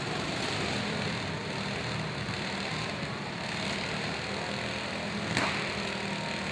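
Several riding lawn mower engines running together as the derby mowers shove against each other, with a sharp bang about five seconds in.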